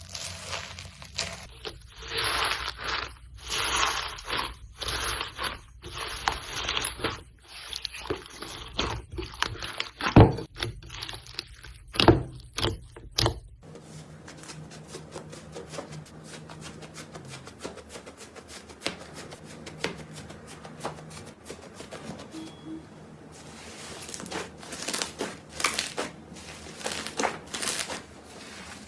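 Slime being squished, pressed and stretched by hand, giving irregular wet squelches and crackling, popping clicks, with two louder smacks about ten and twelve seconds in. Past the halfway point the sound turns to a finer, quieter crackle of many small pops that grows louder near the end.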